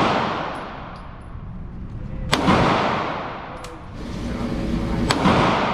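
Handgun shots in an indoor shooting range: two loud sharp reports about three seconds apart, each leaving a long echoing tail, with a fainter crack between them.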